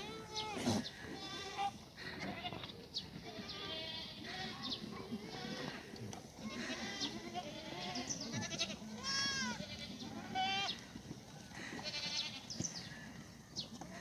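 A herd of black goats bleating over and over, one call after another, a dozen or so calls of different pitches.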